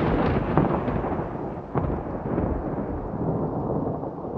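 Thunder rumbling and slowly dying away after a close clap, with sharp crackles about half a second and nearly two seconds in, over steady rain.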